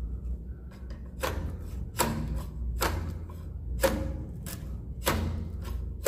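A long-handled swiftlet-nest harvesting pole, with a scraper and catch net on its tip, knocking and scraping against the wooden nest planks in short sharp strokes about once a second, over a low steady hum.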